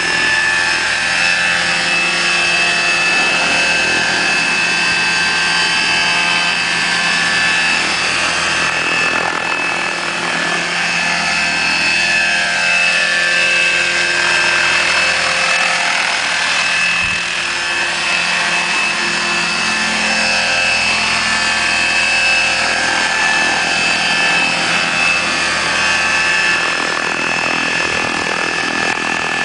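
Electric Bell 214 scale model helicopter with a 1.8 m rotor in flight: a steady high whine from the electric motor and gear drive over the rush of the rotor blades, its pitch swinging up and down a little midway through.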